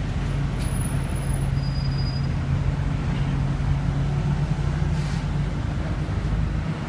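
Scania OmniCity city bus engine idling, a steady low hum heard inside the passenger cabin while the bus waits at a red light. A short hiss comes about five seconds in.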